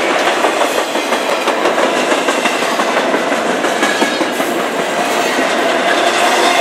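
Loaded double-stack intermodal well cars rolling past close by: a loud, steady noise of steel wheels on the rails, with irregular clacks as the wheels cross rail joints.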